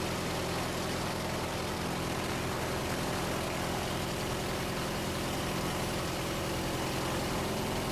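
Lycoming IO-390 four-cylinder aircraft engine with its propeller, running steadily at about 1280 RPM on the ground.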